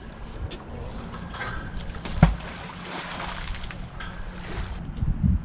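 Wind rumbling on the microphone, with a single sharp knock about two seconds in.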